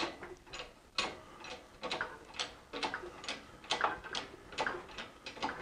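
Hoist ratchet clicking while lifting an engine out of the car: a steady run of sharp clicks, about three a second.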